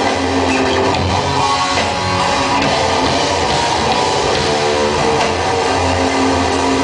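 A rock band playing live, loud and without a break, with electric guitar to the fore.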